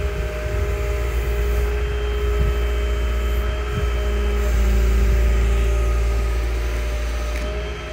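Liebherr A 309 Litronic wheeled excavator's diesel engine running steadily, with a steady whine over the rumble. The engine note grows louder about four and a half seconds in and eases off again near the end.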